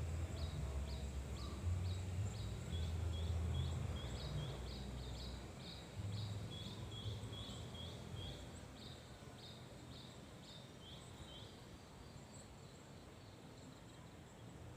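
A bird calling a rapid series of short, high, falling chirps, about two a second, that stop a little before the end. A low rumble underneath fades out about halfway through.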